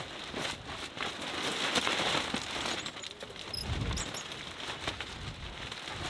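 A fire crackling, a dense run of small pops and hiss, with a low thump about four seconds in.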